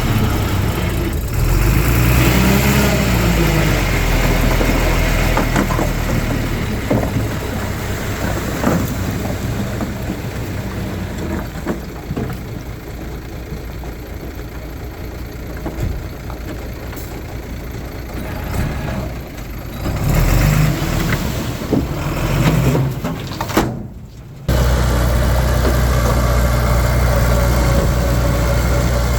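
Diesel engine of heavy earthmoving machinery, a bulldozer or dump truck, running and working, with a short rev up and down about two seconds in. Near the end the sound drops out briefly, then a steady low engine drone takes over.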